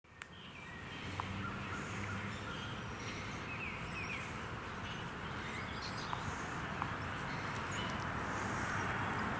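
Outdoor ambience that fades in over the first second: a steady background hiss with a few faint, scattered bird chirps.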